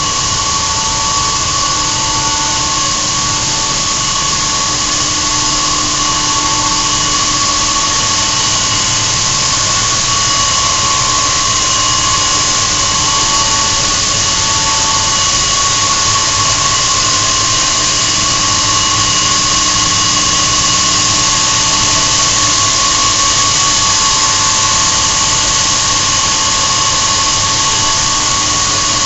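Danfoss Turbocor oil-free centrifugal compressor with magnetic bearings running at steady speed: a loud, even rush with a steady high whine, and a second tone just below it that swells and fades every couple of seconds.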